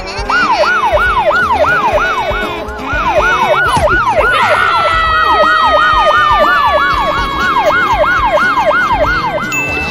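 Siren sound effect in a fast yelp, its pitch sweeping up and down about three times a second. From about halfway a long, slowly falling tone sounds over it.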